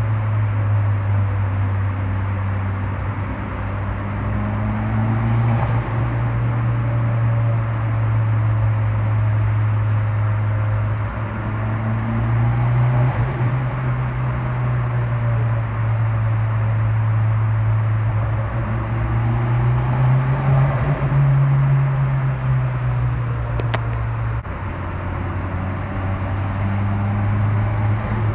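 Fiat Punto T-Jet's turbocharged 1.4 petrol engine running under repeated pulls. The turbo whistle rises and falls four times as the throttle opens and closes. On each lift-off the turbo flutters (compressor surge), which the owner puts down to a blocked blow-off valve hose.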